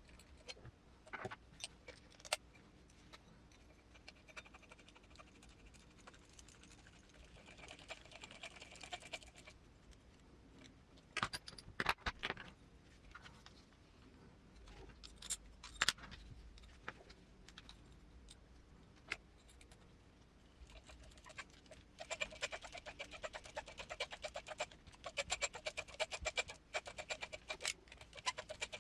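Small metal parts and screws of an RC crawler transmission being handled and fitted: scattered clicks and knocks. Twice, about a quarter of the way in and again for the last several seconds, a fast run of clicking with a steady whir as screws are driven in.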